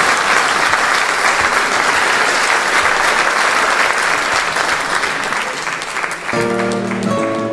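Audience applauding steadily; about six seconds in, the clapping fades as a zither starts playing plucked notes.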